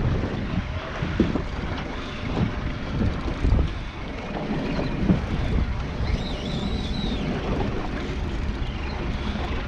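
Wind buffeting the microphone on an open boat at sea, with the sea washing against the hull and a few sharp knocks.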